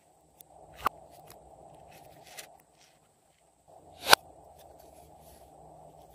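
Small plastic containers being handled by hand: two sharp clicks, the second, about four seconds in, much louder, with a few faint ticks between.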